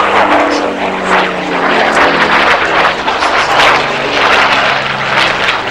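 A de Havilland Mosquito T3's twin Rolls-Royce Merlin engines running loud as it flies by, with propeller noise. The engine note drops in pitch about halfway through.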